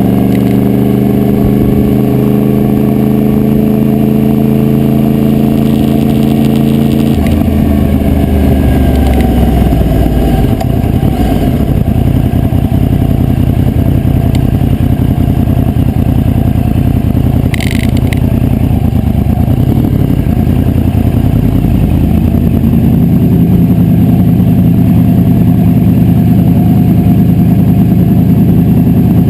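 2009 Yamaha YZF-R1's crossplane inline-four running while riding, picked up by a GoPro Hero2 whose adhesive mount rattles against the bike. The engine holds a steady pitch for about seven seconds. Its tone then breaks up as the revs change, and it steadies again near the end.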